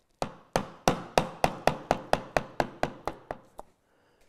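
Mallet striking the handle of a wide 1-inch chisel as it chops into a wooden bar: about fourteen sharp blows at roughly four a second, growing softer toward the end and stopping about three and a half seconds in. The chisel is chopping down to the line to widen a cut and clear the waste.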